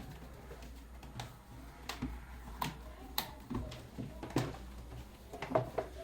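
Irregular sharp clicks and knocks of plastic fan parts being handled and fitted together, about a dozen over a few seconds, over a steady low hum.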